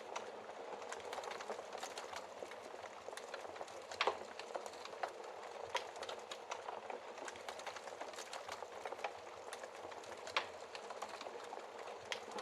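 Wood fire crackling steadily in a fireplace, a dense patter of small crackles with sharper pops from the burning wood, the loudest about four seconds in and again near ten and a half seconds.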